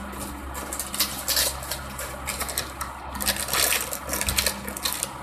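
Thin plastic packaging of a squishy toy crinkling as it is handled and squeezed through the bag, in uneven bursts with a louder flurry about a second in and another past the middle. A steady low background hum runs underneath.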